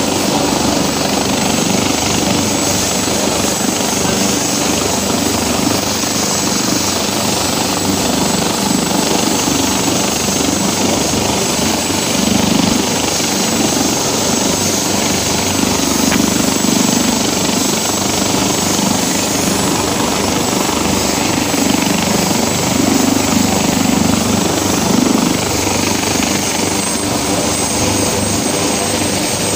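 An AgustaWestland AW139 twin-turbine helicopter running on the ground with its main rotor turning. It makes a loud, steady rush of rotor and engine noise over a thin high turbine whine, which rises slightly near the end as the engines spool up for take-off.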